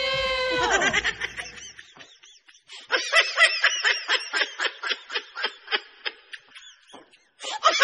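Comedic laughing sound effect edited in: a drawn-out vocal note, then a rapid, high-pitched snickering laugh at about three or four bursts a second, starting again near the end.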